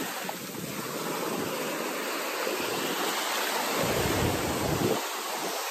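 Sea surf washing up on a sandy beach: a steady rush of breaking waves. About four seconds in, a low rumble of wind buffets the microphone for about a second.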